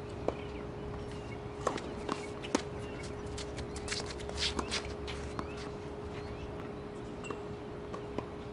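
Scattered sharp knocks of tennis balls hitting rackets and bouncing on the hard court, mixed with footsteps on the court, over a faint steady hum.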